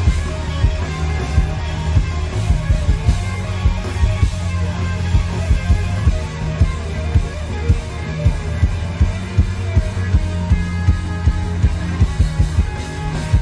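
Live rock band playing loud, with electric guitar over heavy bass and a steady drum beat.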